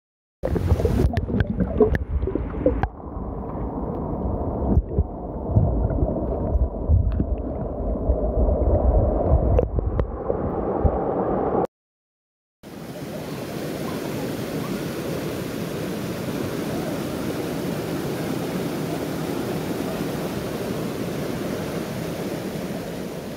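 Shallow river water sloshing and gurgling, muffled and dull with scattered knocks, as the phone is held right at the water's surface. After a brief cut, a steady rush of water pouring over boulders in a small rapid.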